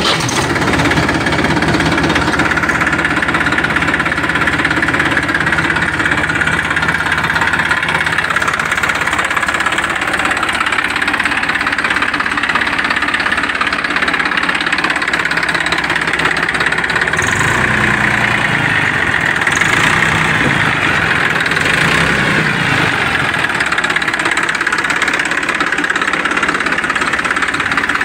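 Massey Ferguson 241 DI tractor's three-cylinder diesel engine catching right at the start and then idling steadily, unloaded, with gears and PTO in neutral.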